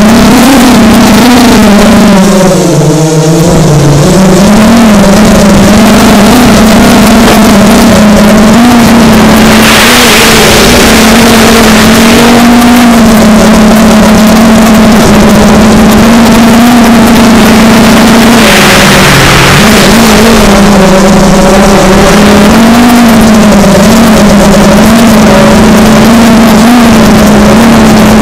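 FPV quadcopter's brushless motors and propellers whining loudly on the onboard camera, the pitch wavering up and down with the throttle and dipping briefly about three seconds in. A rush of wind noise swells twice, around ten seconds in and again near nineteen seconds.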